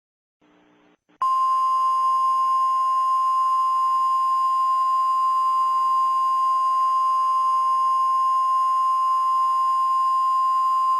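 Emergency alert attention tone: a single steady, high beep at one pitch that starts about a second in, holds unbroken for about ten seconds and cuts off suddenly.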